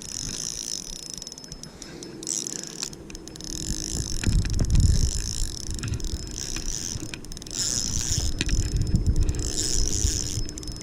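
Shimano Solstace 1000 spinning reel whirring steadily as line is worked in against a hooked carp, from about two seconds in. Wind rumbles on the microphone in gusts.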